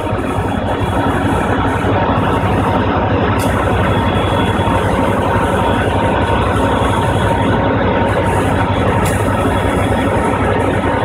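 EMD F40PH diesel-electric locomotives, each with a 16-cylinder two-stroke EMD 645 engine, idling close by with a loud, steady drone.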